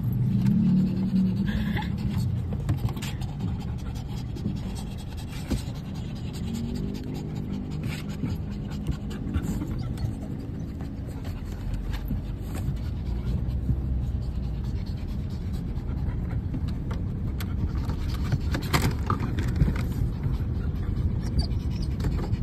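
Steady low rumble of a car's engine and tyres heard inside the moving cabin, with occasional light clicks and rustles.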